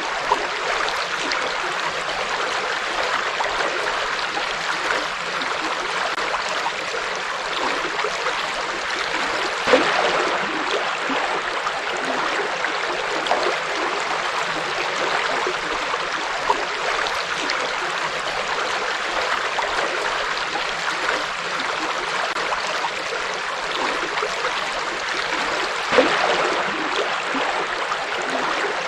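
Forest river flowing steadily over stones, a continuous rushing and babbling of water with a couple of brief louder splashes.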